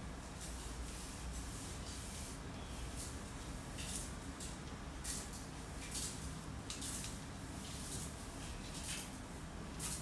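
Cloth wiping the blades of a ceiling fan: short, irregular swishing rubs, more of them in the second half, over a steady low hum.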